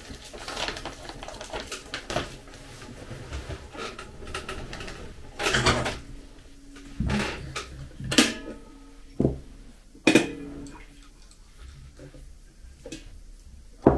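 Paper snack bag crinkling as it is handled, then a few knocks and clatters of a metal stovetop kettle being picked up and handled, and near the end hot water poured faintly from the kettle into a glass mug.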